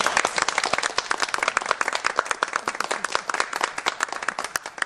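Applause: a dense run of hand claps from several people, thinning out near the end.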